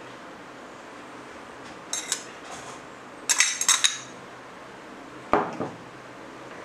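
Kitchenware clinking as grated coconut is tipped from a bowl into an open aluminium pressure cooker. There are two light clinks about two seconds in, a quick run of sharper clinks around three and a half seconds, and one harder knock near five and a half seconds.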